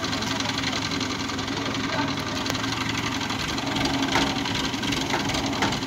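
Diesel engine of a hydra crane running steadily at idle, a low even drum. Two light knocks come through near the end.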